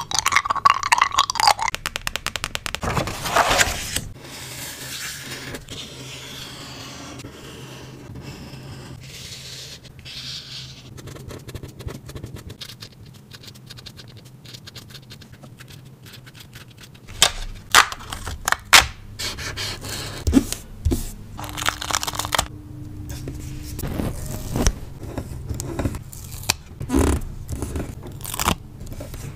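Close-up journaling sounds: paper and stickers being handled, scraped and pressed down. Rapid crackling for the first four seconds, a quieter stretch of scraping, then scattered sharp taps and clicks in the second half, over a low steady hum.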